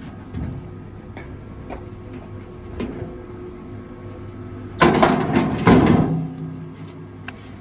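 Rail log splitter running with a steady motor hum, a few light knocks, then a loud spell of cracking and splintering about five seconds in as a log is split.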